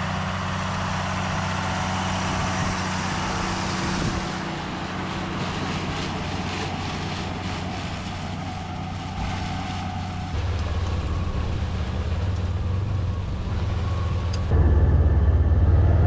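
John Deere tractor engine running steadily as it pulls a rotary hay rake through cut triticale. About ten seconds in the engine note gets deeper and louder, and near the end a vehicle's engine rumble takes over, louder still.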